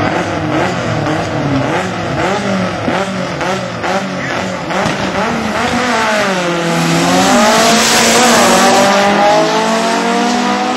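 Two Volkswagen Beetle drag cars revving their engines at the start line, then launching. The engine pitch dips as they pull away and climbs as they accelerate down the strip, with a loud rush about eight seconds in.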